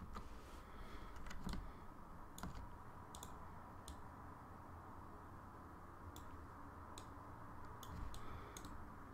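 Faint, scattered clicks of a computer mouse and keyboard, about a dozen at irregular intervals, over a low steady background hum.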